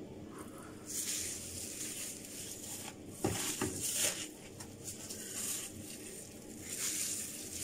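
Hands working mashed avocado through thick curly hair: faint, irregular rustling and squishing, with one sharper crackle a little past three seconds.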